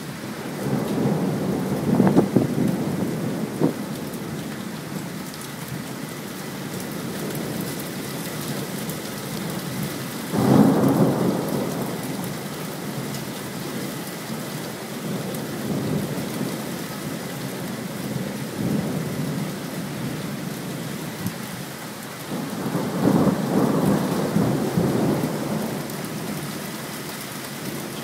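Steady rain falling through a thunderstorm, with three long rolls of thunder. The middle roll starts suddenly.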